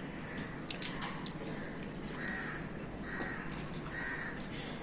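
A crow cawing several times in the background, short calls about a second apart, over faint clicks of fingers working rice in a steel bowl.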